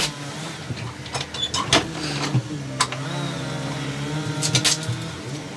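A motor running steadily, its low hum wavering slightly in pitch, with several sharp clicks and knocks over it.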